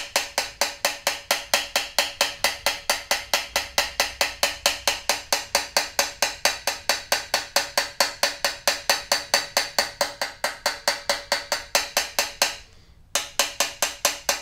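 Small hammer tapping rapidly and evenly on a Besson trumpet's brass bell, about five taps a second with the bell ringing after each one, pausing briefly near the end before starting again. The taps are bringing down high spots and the crown left in the brass after dent work.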